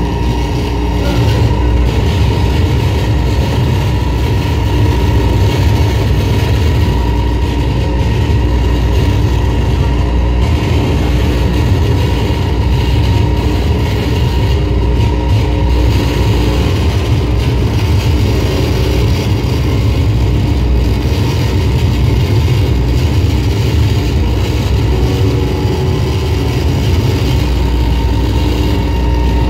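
Electronic noise-music drone: a loud, dense low rumble with a few held tones above it, changing little.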